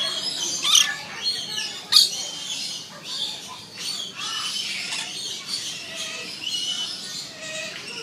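Rainbow lorikeets screeching and chattering, a steady run of short shrill calls. Two sharp, loud screeches stand out about one and two seconds in.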